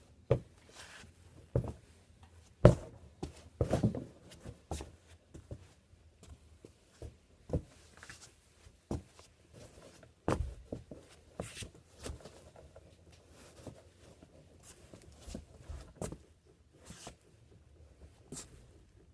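Leather Red Wing Pecos boots shifting and stepping on a foam floor mat: irregular knocks and scuffs, some sharp, with short quiet gaps between them.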